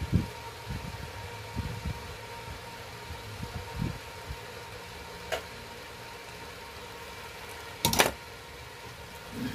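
Steady background hum with soft low knocks as wires are handled and soldered onto the circuit board inside a metal stabilizer case. A sharp knock about eight seconds in is the loudest sound.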